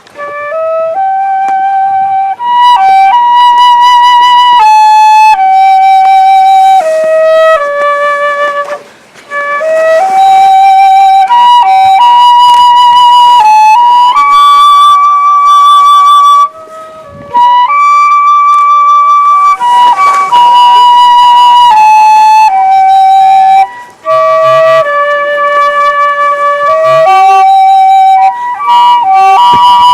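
Solo flute playing a slow melody of held notes in phrases, with short pauses for breath between them.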